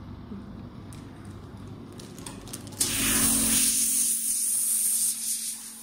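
Spray handpiece of a hydra-oxygen facial machine hissing as it jets a fine mist of water and compressed air. The hiss starts suddenly about three seconds in and dies away just before the end, with a low steady hum underneath.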